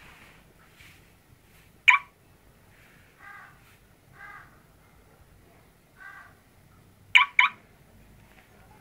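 Crows cawing: a loud short caw about two seconds in, a few fainter caws after it, and a quick loud pair near the end.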